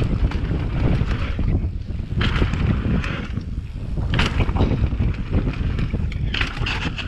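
Wind buffeting the microphone of a mountain bike rider's camera while the bike rolls along a dirt singletrack, with a steady low rumble from the ride over the bumpy trail. Three brief bursts of hiss come through, about two, four and six seconds in.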